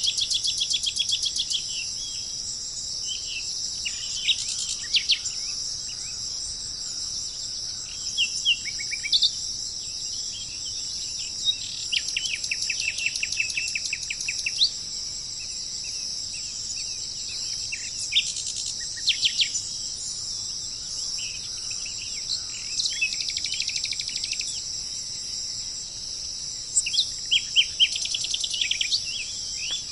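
Small songbirds singing in short, rapid trills and chirps, several at a time in places, over a steady high-pitched chorus of insects.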